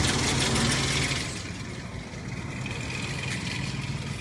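Ford 4.0 SOHC V6 engine idling with a rattle from its worn timing chains. The clatter is loud for about the first second, then drops and goes on more quietly.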